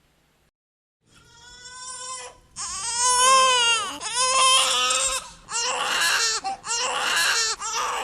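A baby crying: after about a second of silence a wavering cry builds up, then breaks into a run of short, ragged wails.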